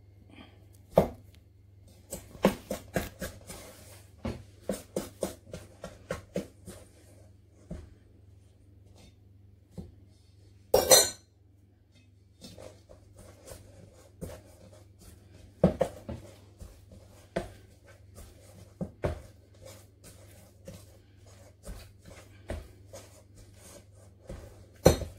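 Hands mixing and squeezing sticky sourdough dough in a stainless steel bowl, with irregular soft knocks and clinks of the metal bowl and one louder ringing clank about halfway through.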